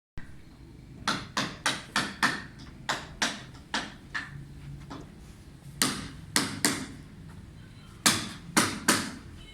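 Hammering in a woodworking shop: sharp blows in quick runs of two to five, with short pauses between the runs.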